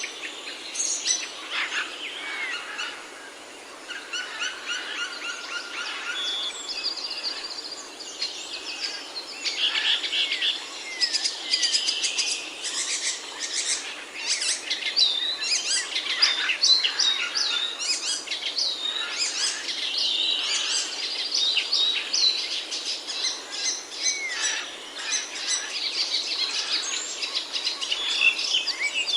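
Several songbirds singing and chirping at once: a dense, overlapping mix of quick chirps, short trills and rising whistles, with a brief lull about three seconds in.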